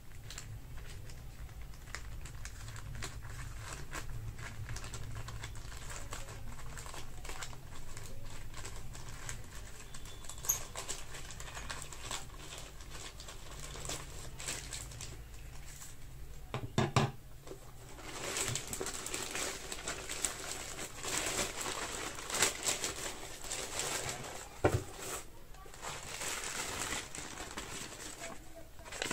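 Packaging being handled and unwrapped: soft crinkling and rustling with light ticks. It grows busier about two-thirds of the way through, with a couple of dull knocks.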